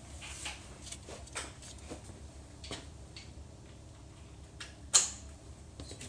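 Scattered light clicks and knocks of hand tools and metal parts being handled, with one sharp clack about five seconds in.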